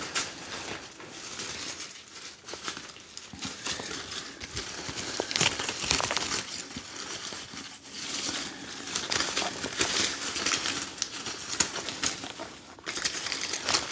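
Artificial leaves and stems rustling and crinkling in irregular bursts as hands bend and arrange them.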